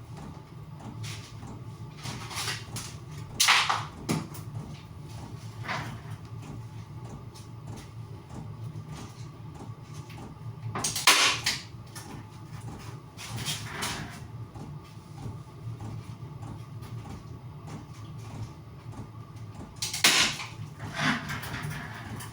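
Hand work on building materials: scattered knocks, rustles and scrapes, with three louder clatters about three and a half, eleven and twenty seconds in, over a steady low hum.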